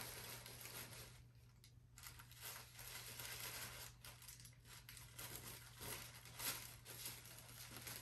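Paper towel wrapping crinkling and rustling as it is pulled off a potted plant by hand, faint and uneven.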